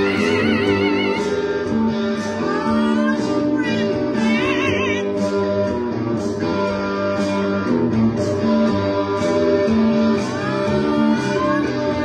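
Electric guitar and electric bass playing a rock riff, with a yellow-headed Amazon parrot singing along in high, wavering notes near the start and again about four seconds in.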